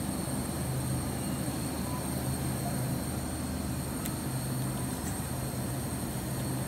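Steady low machine hum with a faint high whine from running refrigeration equipment, with a faint click about four seconds in.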